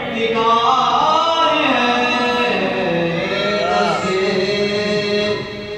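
A man's solo voice chanting a manqabat, an Urdu devotional poem in praise of the Imams, in long held notes with wavering ornaments.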